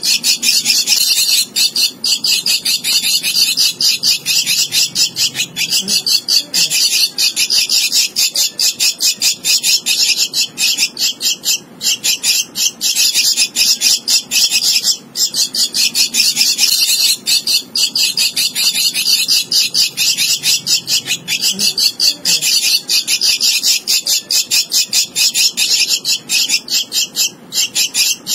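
Javan myna nestling begging for food: a loud, rapid, harsh stream of short high calls, broken only by a few brief pauses.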